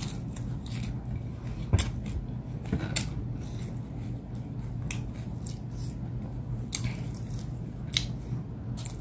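Close-up eating sounds from roast chicken eaten by hand: chewing, with a few sharp crackles as crisp skin and meat are bitten and torn from the bones. A steady low hum runs underneath.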